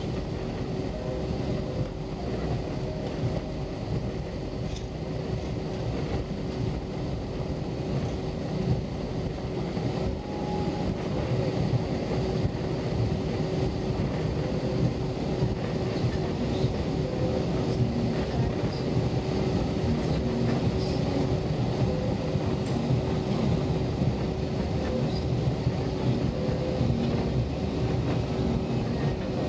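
Cabin noise of an Airbus A320-232 rolling slowly on the ground: a steady rumble from its IAE V2500 engines at low taxi power and the wheels on the pavement, with a thin steady hum over it. It gets slightly louder about ten seconds in.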